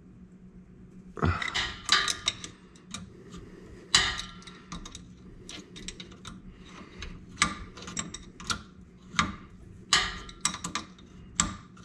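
Crescent (adjustable) wrench clicking and clacking against the rear differential's cooler line fitting as the fitting is worked loose, in an irregular string of sharp metallic clicks over a steady low hum.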